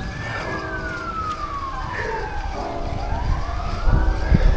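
A siren wailing in slow rise-and-fall sweeps, peaking about every four seconds, over a steady low rumble of wind and tyre noise from the moving bicycle.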